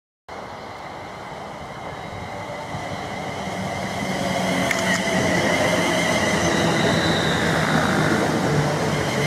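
Class 350 Desiro electric multiple unit approaching and running past, growing louder over the first few seconds and then holding steady, with a steady high whine from its traction equipment over the running noise of wheels on rail.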